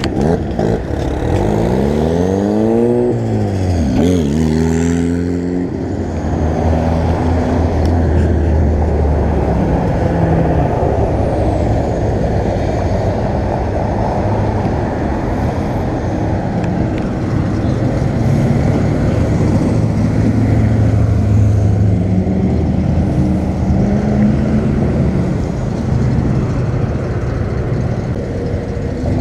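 Cars and pickup trucks driving past on a city street, their engines and tyres running steadily. In the first few seconds one engine revs up, drops in pitch at a gear change about three seconds in, then revs up again.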